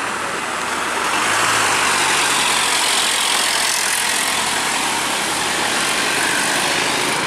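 Loaded light truck's engine pulling hard up a steep hill climb as it passes close by, getting louder about a second in and then holding steady.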